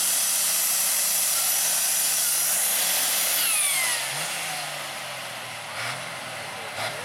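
1964 Allis-Chalmers D21 pulling tractor's engine running loud at full power as it pulls the sled, then about four seconds in it drops off and winds down with a falling whine.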